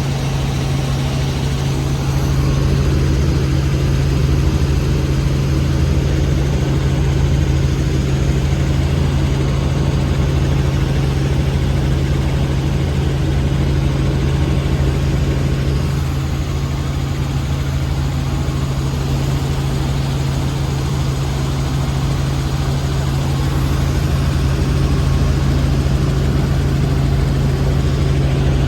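Helicopter engine and rotor noise heard from the cabin: a steady, loud drone with a strong low hum.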